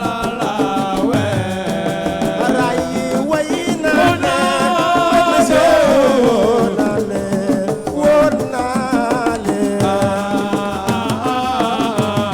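Assiko band music: a voice singing a melody over steady hand-drum percussion.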